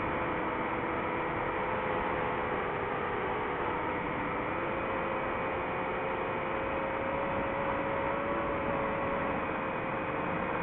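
DJI FPV drone's motors and propellers running in flight: a steady rushing drone with a hum whose pitch drifts slightly up and down.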